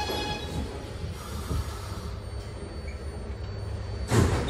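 Inside a 2020-21 Kawasaki R211A subway car, the tone of its Alstom IGBT-VVVF traction inverter fades out early as the train slows, leaving a low rumble of the running gear. A short loud burst comes about four seconds in.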